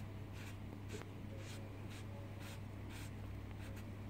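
Sponge rubbed in circular strokes over a board coated with textured concrete-effect paint, giving soft scratchy swishes about twice a second, over a steady low hum.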